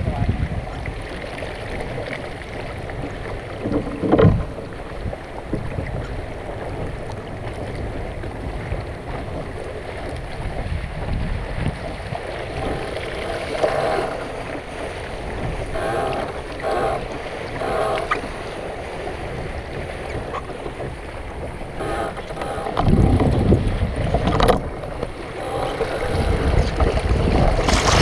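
Wind buffeting the microphone over the rush of water around a Sunfish sailboat under way, with a single knock about four seconds in. The buffeting grows louder near the end.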